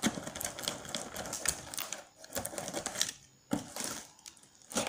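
Utility knife slitting and tearing the plastic film wrapped around a cardboard box, a fast run of small crackling clicks and scratches with two short pauses.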